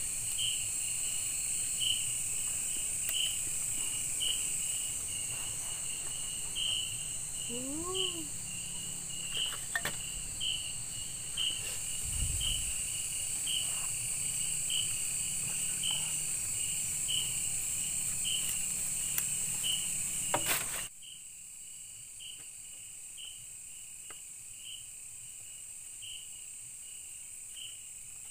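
Night insects chorusing: a steady high-pitched trill with a regular chirp roughly once a second, typical of crickets. A brief rising-and-falling call sounds about eight seconds in, and the background noise drops suddenly about two-thirds of the way through.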